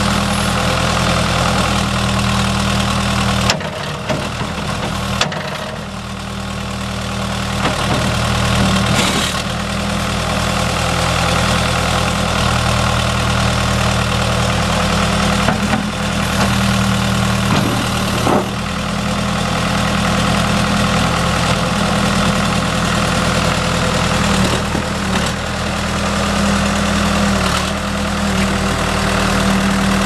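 Four-cylinder diesel engine of a 1980 Case 580C backhoe running steadily at idle, with a few brief clicks and a dip in level for a couple of seconds about four seconds in.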